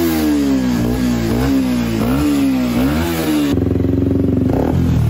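Beta RR 125 LC motorcycle engine, fitted with an aftermarket sport exhaust, revved in quick repeated blips, each rising sharply and falling back. About three and a half seconds in, it cuts abruptly to a steadier, harder-running engine sound with rapid pulsing.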